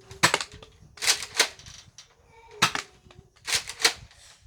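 Nerf Elite Surgefire blaster being pumped and fired: sharp plastic clacks, mostly in close pairs, repeating about once a second.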